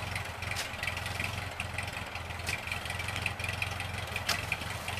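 1948 Ford 8N tractor's four-cylinder engine idling steadily, with three sharp knocks from a shovel digging around the stump.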